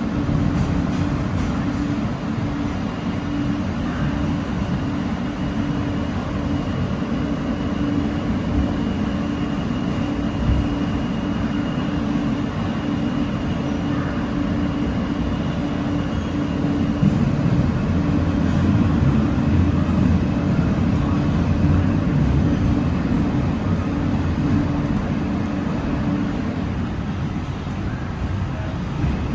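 Interior ride noise of an NYC subway R160A car in motion: a steady low rumble of the wheels on the rails and the running gear. A faint high whine runs through about the first half.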